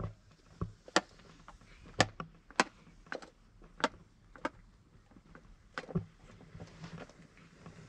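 A series of about seven sharp knocks, irregularly spaced from half a second to a second and a half apart, the last about six seconds in.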